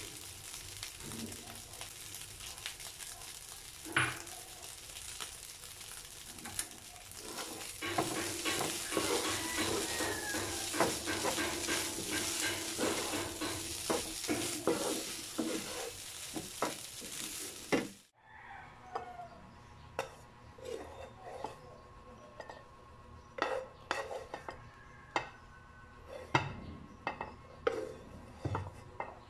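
Fried rice sizzling in a nonstick frying pan while a wooden spatula stirs and scrapes it, the sizzle and scraping getting busier about eight seconds in. The sizzle cuts off abruptly around eighteen seconds, followed by scattered knocks and scrapes of the spatula and pan as the rice is scraped out into a bowl.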